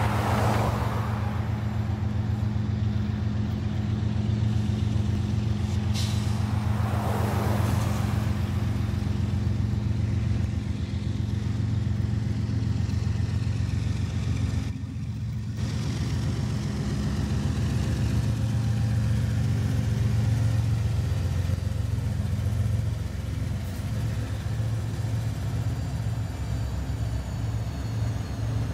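Union Pacific freight train's diesel locomotives running as they pass, a steady low engine drone from several units in a row. A road vehicle swishes past at the start and another about seven seconds in.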